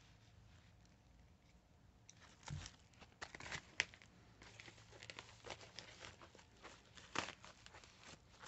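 A parcel being opened by hand: faint rustling and crinkling of packaging with scattered small clicks and knocks, starting about two seconds in.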